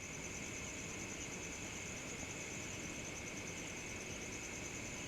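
Night insect chorus: crickets trilling steadily in two high pitches, one above the other, over a low, even background hiss.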